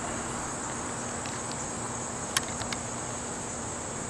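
Steady, high-pitched chirring of insects, with a couple of faint clicks about two and a half seconds in.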